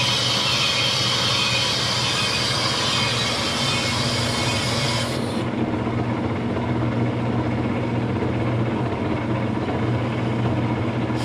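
Metal lathe running steadily, its motor and gearing humming as a large piston casting turns in the chuck. The bright hiss drops away abruptly about five seconds in, while the hum carries on.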